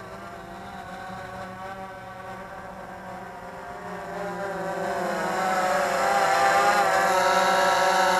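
DJI Phantom 3 Advanced quadcopter's propellers buzzing in several wavering tones, growing louder from about halfway as the drone comes down closer, then holding steady.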